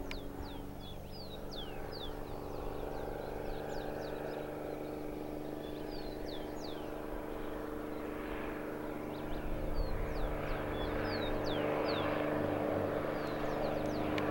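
Crop-spraying plane's engine droning steadily, growing louder in the second half as it makes a low spraying pass. Birds chirp repeatedly, in short falling notes, over the engine.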